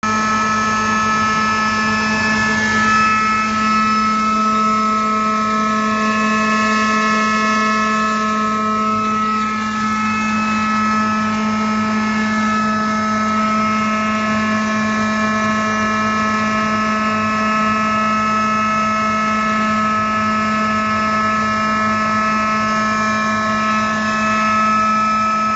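Stainless steel pepper milling machine (grinder) running at a steady speed, giving a loud, even hum with several high whining tones. Dried red chili peppers are being fed in to be ground into powder.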